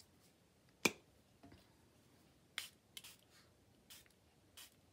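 Hands handling a Distress ink pad and its applicator: one sharp plastic click a little under a second in, then a few lighter clicks and taps.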